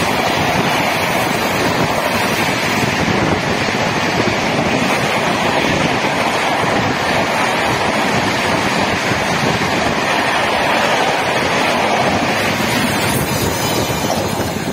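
An express train's passenger coaches rushing past at high speed through a station without stopping: a loud, steady roar of wheels on rail and rushing air.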